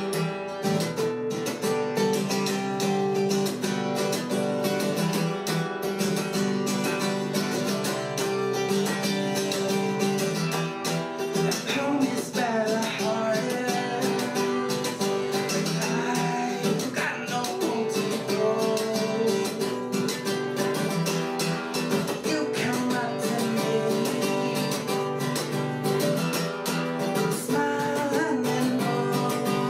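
Acoustic guitar strummed briskly in a steady, driving rhythm, with a man singing along in places.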